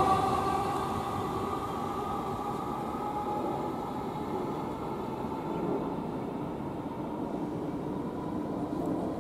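Electric multiple-unit train moving off, its motor whine and running rumble fading away over the first couple of seconds, leaving a steady low background rumble.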